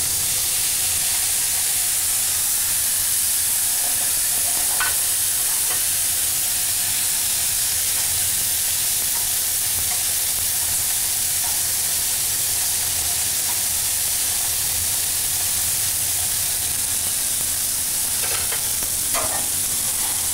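Pork filet mignon medallions sizzling steadily in a hot frying pan, deglazed with the leftover marinade poured over them. A few short clicks of tongs against the pan come about five seconds in and again near the end.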